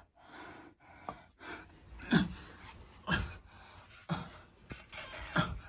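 A man breathing hard close to the microphone, with heavy breaths roughly once a second.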